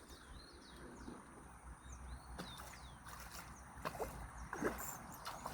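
Birds giving short repeated chirps, over a low rumble of wind and a steady high hum, with a few sharp clicks near the end.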